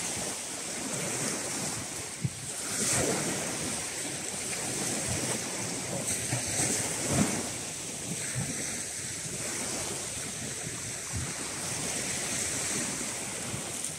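Small waves washing onto a shingle beach, with wind buffeting the microphone.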